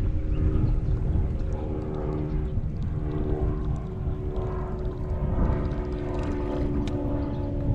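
Steady drone of an engine, holding an even pitch throughout, over a low rumble.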